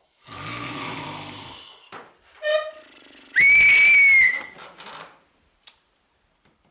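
A man snoring for about a second and a half, then a loud, single whistle held for about a second: the whistle meant to make the snorer stop.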